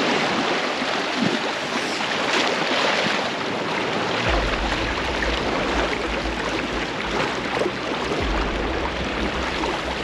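Surf washing onto the beach in a steady rush of water noise. A low rumble comes in suddenly about four seconds in and continues.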